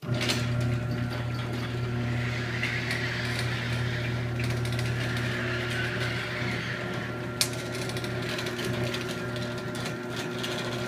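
Chain-drive garage door opener running as it opens the door: a steady motor hum with the chain rattling along the rail, starting suddenly, with one sharp click about seven seconds in.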